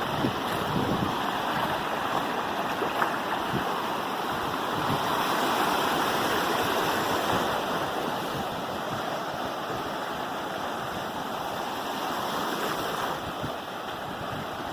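Sea surf, a steady rushing noise that swells a little about halfway through and eases toward the end.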